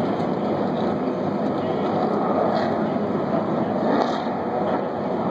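Many race car engines running at idle together on the starting grid, blending into one steady mixed engine noise.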